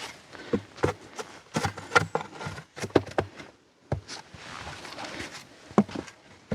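A hammer knocking on wooden planks: about a dozen irregular strikes with short pauses, nailing boards on a small wooden footbridge.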